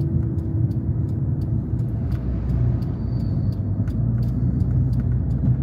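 Steady low road and engine rumble of a car cruising on an expressway, heard from inside the cabin.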